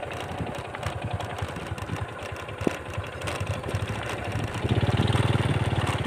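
Motorcycle engine running while riding over a dirt track, growing louder for about a second near the end.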